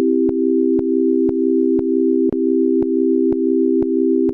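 Synthesized chord of three pure, sine-like tones played back from a Logic Pro session, held steady and retriggered about twice a second with a click at each new note. It cuts off suddenly near the end.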